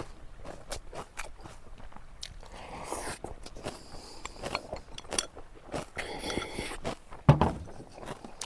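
Close-up crunchy chewing and biting of kimchi, with wet clicks of the mouth and a couple of longer crunching spells. A loud knock a little after seven seconds in.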